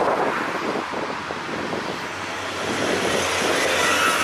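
Low-floor electric tram passing close by: a steady rumble of wheels on rail with motor hum, easing off as it goes away, and a faint high wheel squeal near the end.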